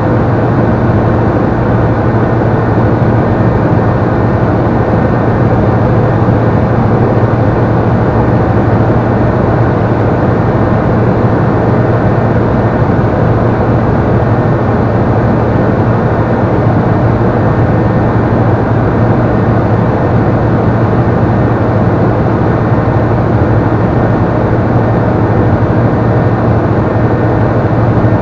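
Steady drone of a Robin CDI light aircraft's diesel engine and propeller in cruise, heard inside the cockpit: a deep, even hum under a broad rushing noise that holds constant throughout.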